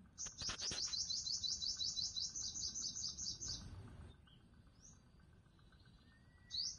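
Sunbird calling: a fast trill of high, rising chirps, about seven a second for some three and a half seconds, followed by a few single chirps.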